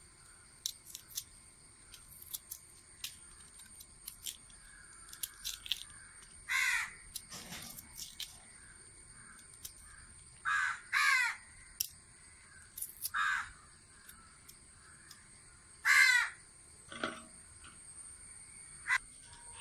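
Crows cawing in short calls about six times, the loudest about sixteen seconds in. Between the calls come faint clicks and scrapes of a knife peeling cassava.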